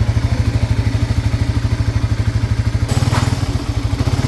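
Single-cylinder motorcycle engine idling with a fast, even pulse and some clatter. Its owner complains of a noisy head, and the mechanic hears a knock like piston slap, which he says usually comes from the connecting rod.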